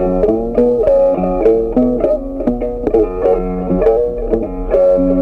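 Background music: a melody of short, sharply struck notes, several a second.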